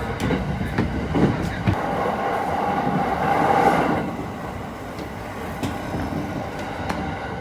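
Moving electric commuter train heard from inside the carriage: a steady running rumble with a few sharp clicks of the wheels over rail joints. A louder hiss builds about two seconds in and falls away near four seconds.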